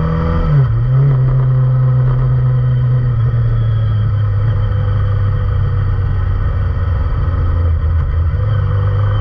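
Kawasaki Ninja ZX-25R's inline-four engine running through an Akrapovic full-system exhaust, held at steady revs. The pitch drops briefly about half a second in, then holds steady.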